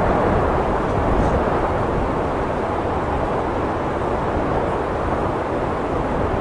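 Blizzard wind blowing steadily, a dense rushing noise with a low rumble underneath.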